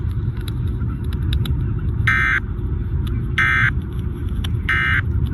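Three short bursts of Emergency Alert System end-of-message data tones, a harsh digital warble, a little over a second apart. They sound over a steady low rumble with scattered crackles of radio static.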